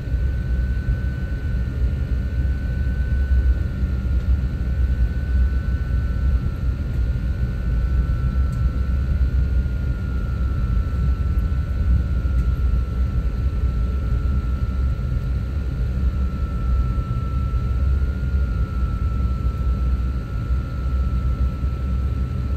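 Jet airliner cabin noise while taxiing after landing: a steady low rumble with a thin engine whine at idle, its pitch sinking slightly over the stretch.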